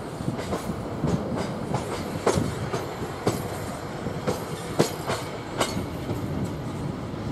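Heritage passenger carriages' steel wheels clacking over rail joints and pointwork as the train rolls past, over a low rumble. The clacks come unevenly, roughly twice a second.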